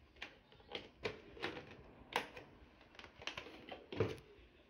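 Irregular sharp clicks and taps on a plastic pet carrier as cats move in and around it, about two a second, with a heavier knock about four seconds in.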